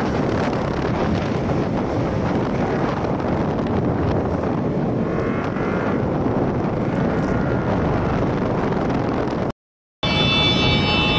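Wind rushing over the microphone with road noise while riding an Ola S1 Pro electric scooter at speed. The sound cuts out for a moment near the end, and a steady high whine comes in after it.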